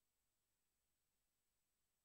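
Near silence: the soundtrack carries no audible sound, only a very faint, even hiss.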